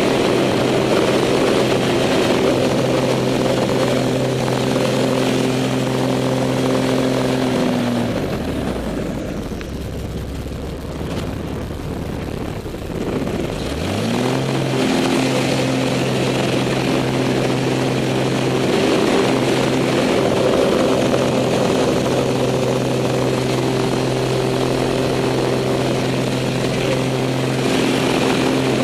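Pitts biplane's piston engine and propeller heard from inside the cockpit, running steadily at high power. About eight seconds in, the engine note drops away sharply and only a rushing noise is left. Around fourteen seconds the note climbs back up and runs steady again.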